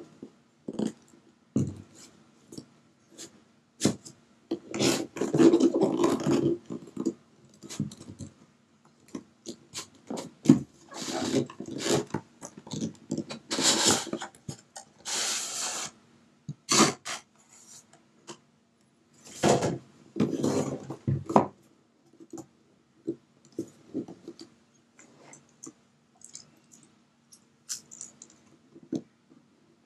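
Cardboard packaging handled by hand: irregular rubbing and scraping of card against card, with longer sliding swishes as the inner box is drawn out of the outer box, and scattered light knocks and taps of the box on a wooden table.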